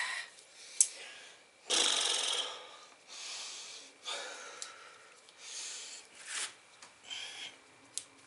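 A man's heavy, strained breathing from the effort of bending a 1/4-20 steel bolt by hand: a series of hard, noisy exhales, about one every second. A few short sharp clicks come from handling the bolt and its wraps.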